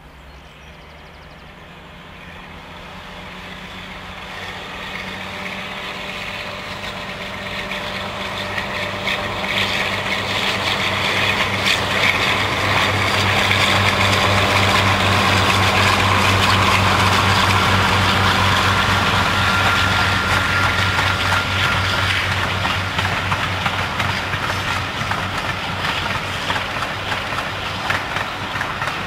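A Class 52 'Western' diesel-hydraulic locomotive, with twin Maybach engines, passing at speed with a train of coaches. Its steady engine hum grows louder through the first half and is loudest just past the middle. It then eases slightly while the coaches rattle and click over the rails.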